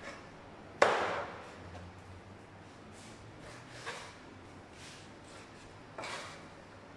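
Knife chopping tuna on a wooden cutting board: one sharp knock about a second in, then two softer knocks near four and six seconds.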